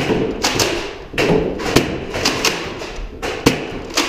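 A quick, irregular string of about ten thumps and knocks during a Nerf Rival battle: blasters firing and foam balls striking and bouncing off hard surfaces.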